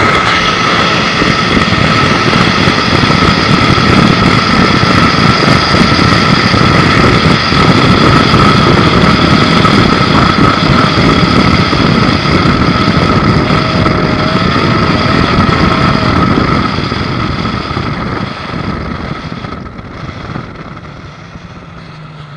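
Mercury Racing XR2 V6 two-stroke outboard running at high speed, a steady high whine over the rush of wind and water from the boat at speed. The sound falls away over the last few seconds.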